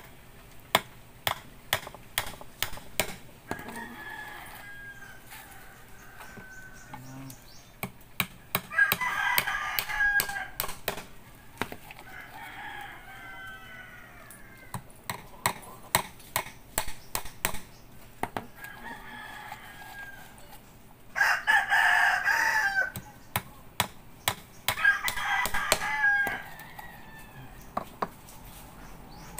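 Claw hammer striking nails in irregular runs of sharp blows. Roosters crow about six times over the hammering, the loudest crow about two-thirds of the way through.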